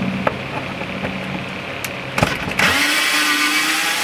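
Cordless drill-driver turning a screw in wooden framing: a click a little after two seconds, then the drill runs steadily and loudly through the end.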